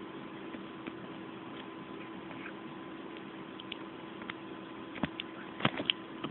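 A few short, sharp clicks and scrapes about five seconds in, loudest near the end, as a puppy's paws and mouth knock and scratch against the phone, over a steady hiss and faint hum.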